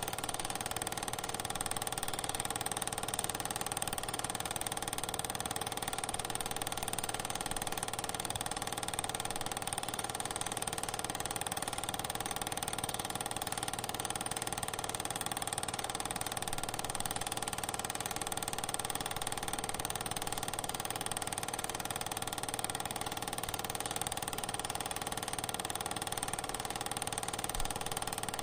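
Steady, unchanging machine-like hum with hiss, running evenly through the shot changes with no other events.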